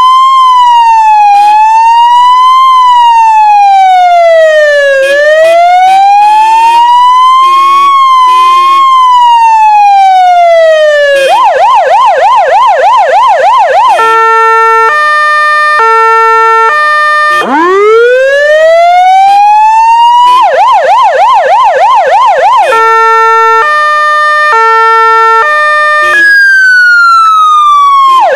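Federal Signal Vama AS-320 series C electronic siren playing through its loudspeaker and cycling through its tones: a slow rising and falling wail, a fast yelp of about three warbles a second, an alternating two-note hi-lo pattern, then a rising wind-up into the wail and yelp again. Very loud throughout.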